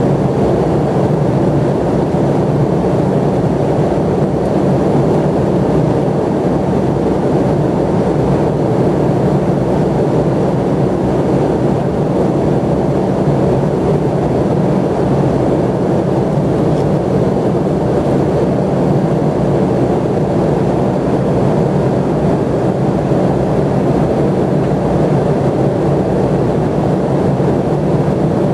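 Steady cabin noise of an airliner in flight: an even rush of engines and airflow with a low hum underneath, unchanging throughout.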